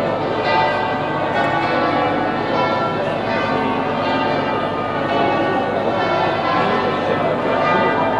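Church bells ringing continuously, many tones sounding over one another, above the murmur of a large crowd.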